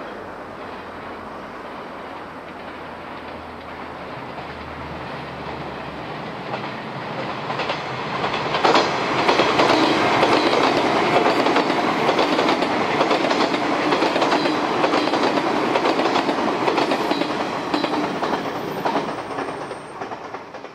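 JR West 381-series Yakumo limited express electric train approaching and passing close by: a growing rumble, then from about nine seconds in a loud, rapid clickety-clack of wheels over rail joints, dying away near the end.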